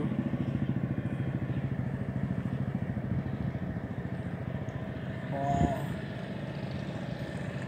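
An engine running steadily at idle with a fast, even throb. A brief voice is heard about five and a half seconds in.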